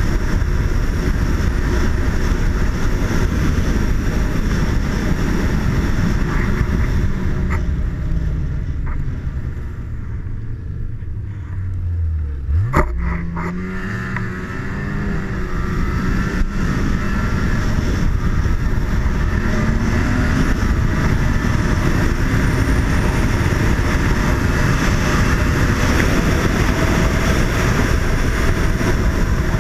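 Snowmobile engine running at speed along a snow trail. Around a third of the way in it eases off for a few seconds, then revs up sharply with a rising whine and carries on steadily.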